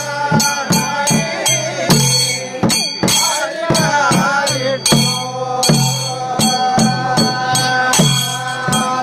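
Theyyam ritual percussion: chenda drums beaten in a fast pattern with a deep stroke roughly once a second, over the ringing of hand cymbals, with voices rising and falling over it around the middle.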